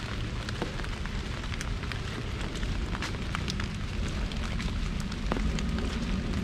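Rain falling on an umbrella: a steady low noise with scattered single drops ticking sharply on the canopy.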